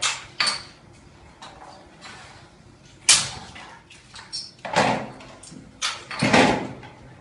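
Glass soft-drink bottles knocking and clinking as they are handled in plastic crates at a hand-operated bottling machine. The knocks are irregular, a few with a brief glassy ring, the loudest about three seconds in and a cluster near the end.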